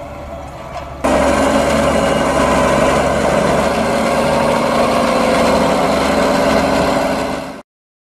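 Deutz-Fahr Agrotron 6165 tractor's diesel engine running steadily while pulling a reversible plough. It is moderately loud at first, becomes much louder and closer about a second in, then cuts off abruptly near the end.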